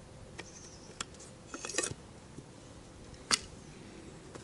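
Clicks and rattles of an airsoft Type 89 knee mortar replica being handled. A few light clicks, then a short rattling cluster, then one sharp click about three seconds in, the loudest.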